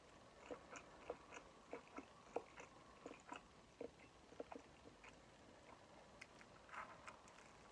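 A person chewing food: faint, wet mouth clicks and smacks at uneven intervals.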